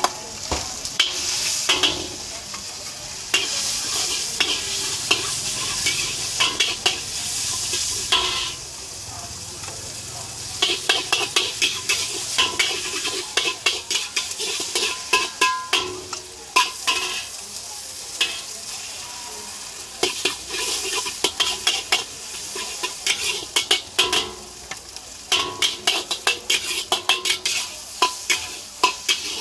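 A metal spatula scraping and clanking against a wok as flat rice noodles are stir-fried in hot oil, with steady sizzling throughout. Runs of quick, sharp spatula strikes come several times, with stretches of mostly sizzle between them.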